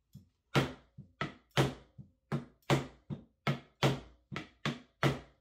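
A run of about thirteen sharp knocks, two or three a second, from working at the stuck cap of a plastic bottle of GAC 800 acrylic medium to loosen it.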